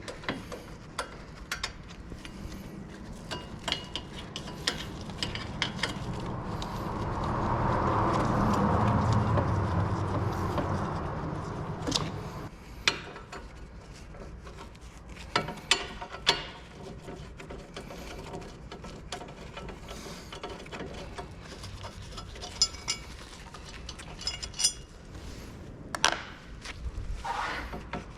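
Scattered metallic clicks and knocks of hand tools and brake parts being handled during brake work, with a broad swell of noise that builds and fades over several seconds in the middle.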